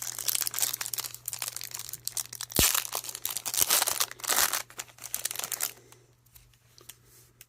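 Plastic wrapper of a trading-card pack being torn open and crinkled by hand, with the loudest tears about two and a half and four and a half seconds in. The crinkling stops about six seconds in, leaving only a few faint clicks.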